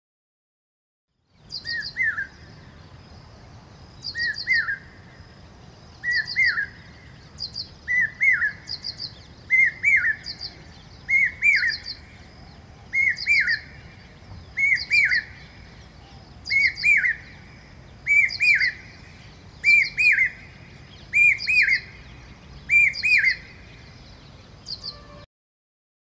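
Common hawk-cuckoo (brainfever bird) male calling its repeated three-note 'brain-fever' phrase, about one phrase every two seconds. The phrases grow louder and slightly higher as the series goes on.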